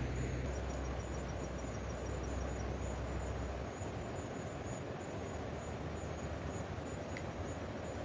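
Insects chirping in a repeated high pulsing trill over a steady background hiss of outdoor noise. A low rumble underneath drops away about halfway through.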